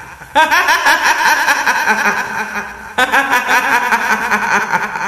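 A woman's high-pitched, cackling ghost laugh, the kuntilanak's 'hihihi' of Indonesian horror, as a sound effect. It comes in two long runs of rapid giggles, the second starting about three seconds in and fading near the end.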